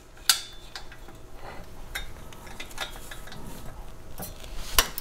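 Socket ratchet wrench clicking in short runs while loosening a bolt on a snowblower's aluminium wormcase, with light metal tool clinks and a sharper click shortly after the start and another near the end.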